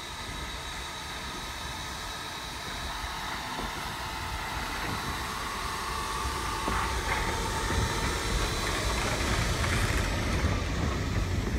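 Small tank steam locomotive hauling passenger carriages slowly past, with a low rumble that grows louder as the carriages roll by.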